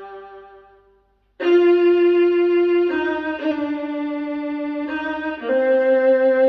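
Slow solo violin music played over KEF LSX wireless speakers: a held note fades away to a brief silence, then long bowed notes follow, changing pitch a few times.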